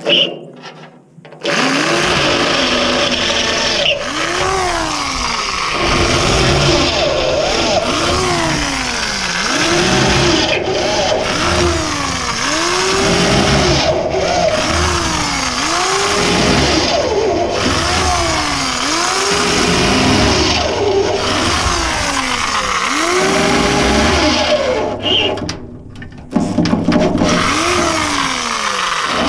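A motor running hard over a rough grinding noise, its pitch rising and falling in a regular cycle about every one and a half to two seconds. It starts about a second and a half in and drops out briefly near the end before picking up again.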